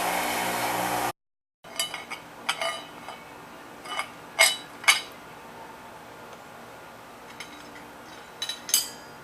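A power tool, the wire wheel used to clean the parts, runs steadily and cuts off abruptly about a second in. After a short gap, small metal bicycle parts clink and tap lightly against each other and the bench, about a dozen scattered knocks.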